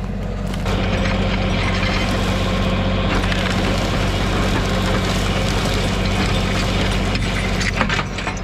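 LS compact tractor's diesel engine running steadily while its PTO-driven Fransgard logging winch reels in cable, dragging a big log out through the brush. The brush rustles and cracks under the log, with a few sharp cracks near the end.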